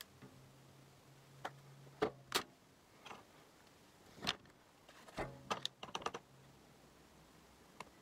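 Scattered light clicks and taps from makeup brushes and palettes being handled, with a quick cluster of them a little past the middle. A faint low hum runs under part of it.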